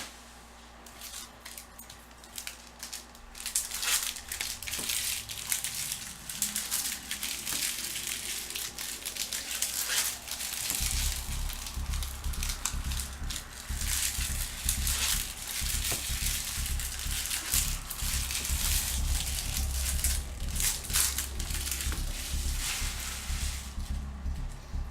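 Plastic trading-card pack wrappers crinkling and tearing as sealed Topps Chrome jumbo packs are ripped open and the card stacks pulled out, picking up about three seconds in and going on with many sharp crackles.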